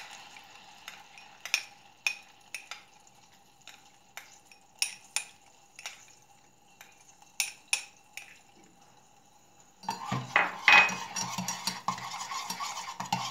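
A metal spoon clinking against a pan and dishes, a sharp clink every second or so, as grape molasses is spooned into melted butter. About ten seconds in, louder steady stirring and scraping in the pan begins.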